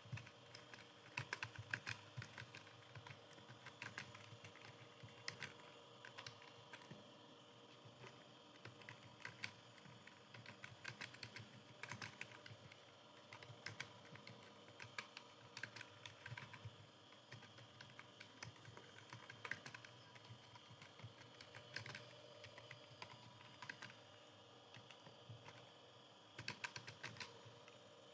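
Computer keyboard typing: fast, irregular runs of key clicks with short pauses between them, over a faint steady hum.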